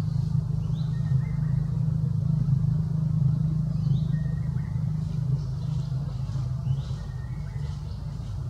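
Steady low rumble of an engine running, with a few faint, short, high chirps over it.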